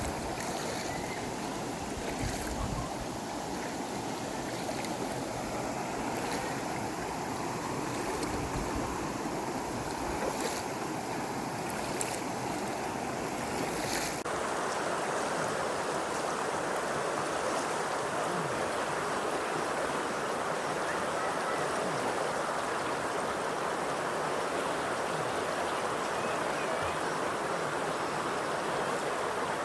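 Waves washing on a shore with wind buffeting the microphone, then an abrupt change about halfway through to a steadier, even rush of water.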